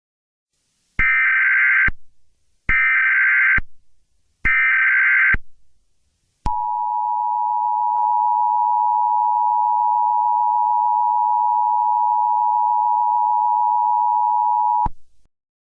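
Emergency Alert System SAME header: three short bursts of warbling data tones, about a second each. Then the steady two-tone EAS attention signal sounds for about eight seconds and cuts off sharply, announcing an emergency alert message.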